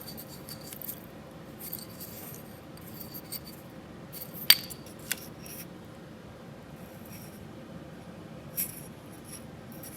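Faint rustling and small clicks from an old truck wiring harness being handled, its wires and connectors rubbing and knocking together, with a sharp click about four and a half seconds in.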